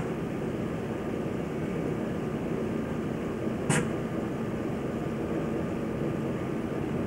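Steady low rumbling background noise of a depot yard on an old camcorder sound track, with no distinct engine note. A sharp click at the very start and another about three and a half seconds in mark the edits between clips.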